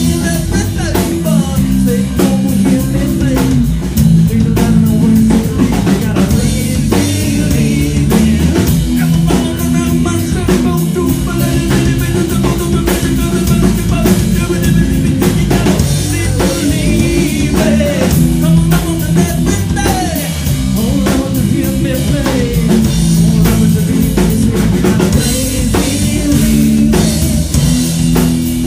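Live rock band playing a song: drum kit, electric bass and electric guitar, loud and continuous, with a steady drum beat.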